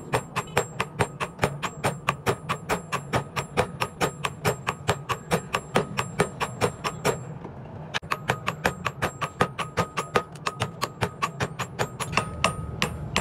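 Hammer blows on hot steel on an anvil, forging an axe head from leaf-spring steel. The strikes come in a fast, even rhythm of about four to five a second, each with a slight metallic ring, and stop briefly about seven seconds in.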